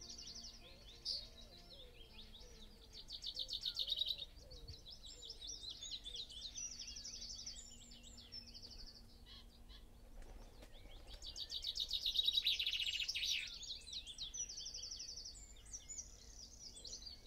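A chorus of songbirds singing, many overlapping chirps and trills, with a loud rapid trill about three seconds in and a louder one around twelve seconds in.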